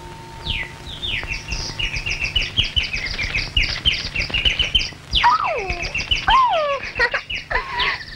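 Cartoon bird sound effect: the caged bird chirping in quick high runs of several chirps a second, then from about five seconds in a series of whistles that swoop downward, over the crackle of an old optical film soundtrack.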